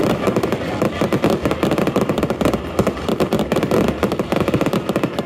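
Aerial fireworks going off in a dense barrage: rapid bangs and crackles many times a second, without a pause.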